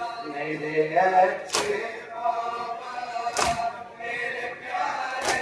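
Group of men chanting a noha, a Shia lament, in unison. A sharp slap of chest-beating (matam) lands about every two seconds, three times.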